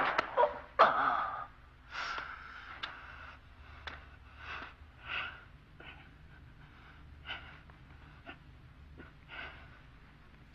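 A man breathing hard after a loud gasp about a second in: a run of short, heavy breaths, roughly one a second, from a fighter worn out mid-fight.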